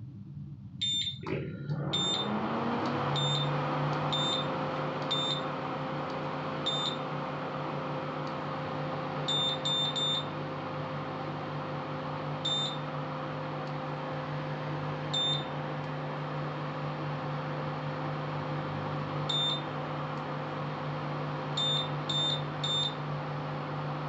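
Prestige PIC 6.0 V2 induction cooktop starting to heat: about a second in, a hum rises in pitch and settles into a steady drone with a rush of cooling-fan air. Over it the control panel gives about fifteen short, high beeps, one at each button press, some in quick pairs and threes.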